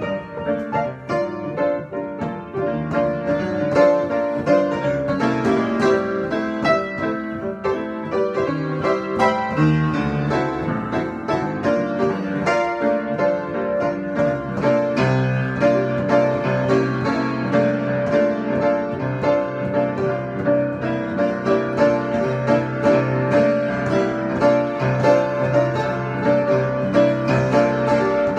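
Piano improvisation: many quick notes over held chords, with heavier low bass notes coming in about halfway.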